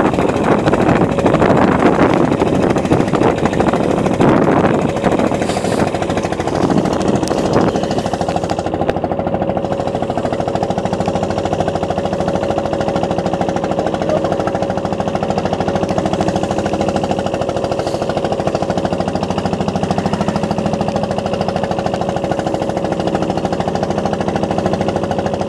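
Small wooden fishing boat's engine running steadily under way, a fast, even knocking beat. Extra rushing noise sits over it for the first seven seconds or so.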